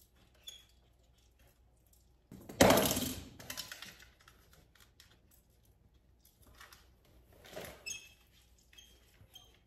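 Light clicks and taps of a small plastic toy being handled, with a sudden loud clatter about two and a half seconds in and a softer one near eight seconds.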